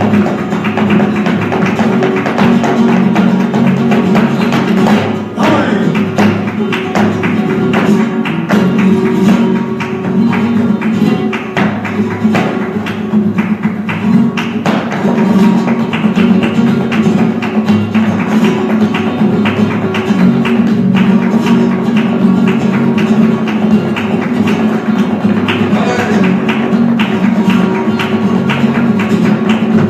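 Flamenco music with guitar, punctuated throughout by rapid, sharp percussive strikes.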